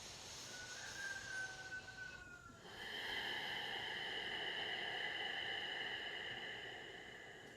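A person taking a deep belly breath: a slow inhale with a faint whistle, then a long breathy exhale from about three seconds in that fades near the end.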